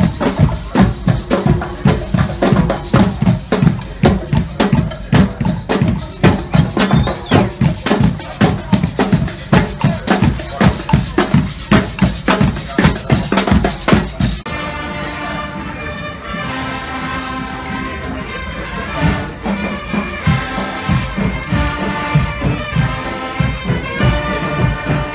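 Marching band of snare and bass drums, cymbals and brass playing a fast, driving drum beat. About halfway through, the sound cuts abruptly to smoother melodic band music with held notes.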